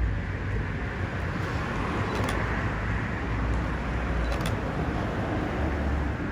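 Road traffic on a city street: a steady rumble and hiss of cars going by, swelling in the middle as a vehicle passes.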